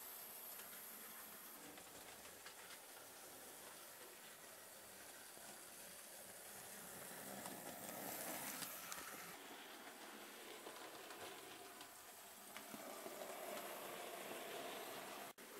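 Faint, steady running of a Bachmann OO gauge SR Maunsell N Class model locomotive: its motor and wheels on the track.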